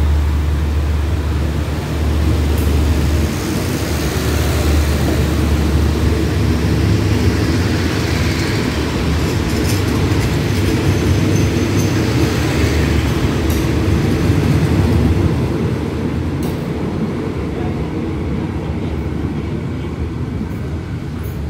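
Passenger coaches of a 15-car express train rolling past on the rails as it leaves the station: a steady rumble and rattle with a few sharp clicks, fading near the end as the last coach pulls away.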